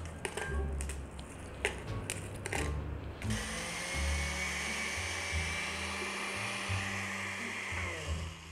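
Countertop blender running for about five seconds, grinding dry María cookies into fine crumbs, with a steady motor noise and a faint whine, stopping shortly before the end. Before it starts there are a few clicks and knocks. Background music with a bass line plays throughout.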